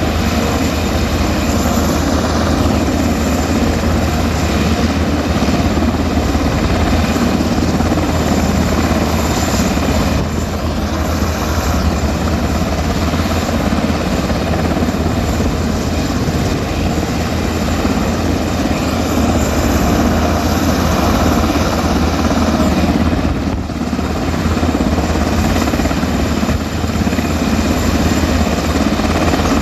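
Rescue helicopter's rotor and turbine running loud and steady, a continuous low rotor thrum that dips briefly twice.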